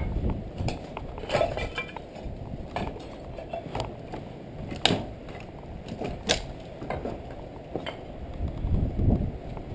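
Footsteps crunching over rubble of broken plaster, stone and wooden planks, with sharp clinks and knocks of loose debris at irregular steps about a second apart.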